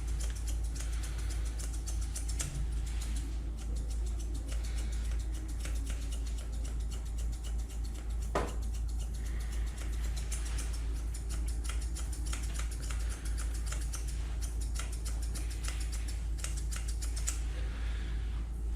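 Grooming scissors snipping a Pomeranian's coat in quick, irregular clicks over a steady low hum, with a brief squeak about eight seconds in.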